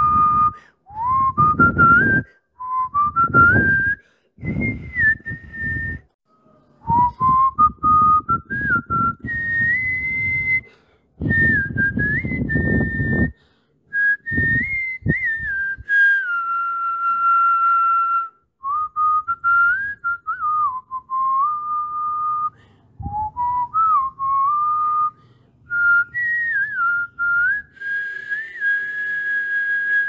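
A person whistling a tune, one clear note at a time, sliding between some notes and holding others. Bursts of low noise come and go under it in the first half.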